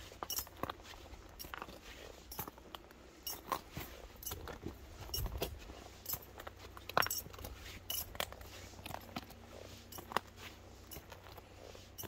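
Footsteps of a hiker walking on a snowy trail and stone steps: irregular crunching steps with light clicks and clinks, about one or two a second.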